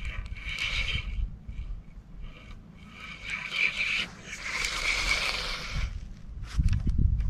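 Spinning reel in use during a cast and slow retrieve, its handle and gears giving a scratchy whirr in two spells: briefly at the start, and for about three seconds from three seconds in. A low rumble comes near the end.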